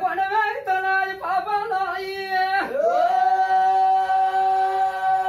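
A solo voice singing a wavering melody, then holding one long steady note from about halfway in.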